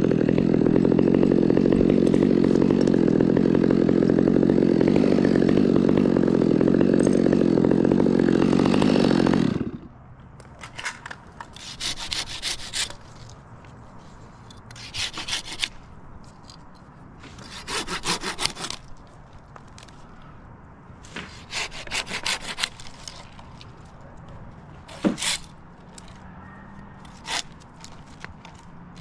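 A chainsaw runs steadily for about the first nine seconds, then shuts off abruptly. After that a hand pruning saw cuts small dawn redwood limbs in several short bursts of quick back-and-forth strokes.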